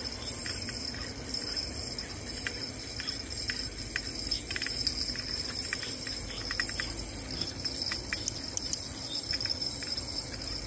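Steady high-pitched chirring of night insects, with irregular light clicks from a fishing reel as line is wound in.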